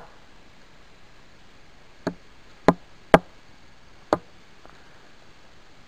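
A wooden shelter support pole being pounded into place against a tree: four sharp wooden knocks between about two and four seconds in, the first one lighter.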